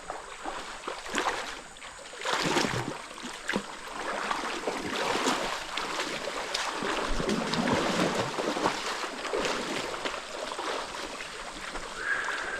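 Running water of a stream with irregular splashing and sloshing on top, louder from about two seconds in.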